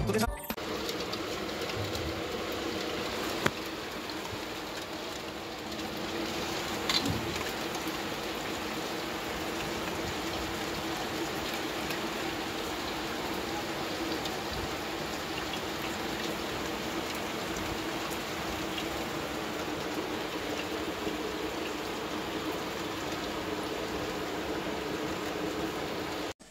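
Heavy rain falling steadily as an even hiss, with a sharp tap about three and a half seconds in and another about seven seconds in.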